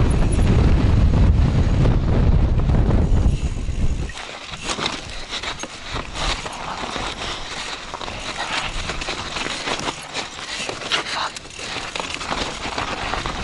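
Wind buffeting the microphone for about the first four seconds, then a mountain bike rolling down a steep, rutted descent: tyres crunching over loose dirt and rock, with frequent sharp clicks and rattles as the bike jolts over the stones.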